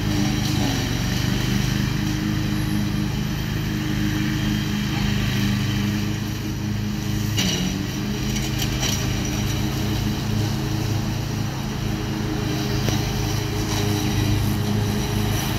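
Grillo FX27 front-deck ride-on mower running steadily as it mows grass, its engine holding an even pitch. There are a few short clicks about halfway through.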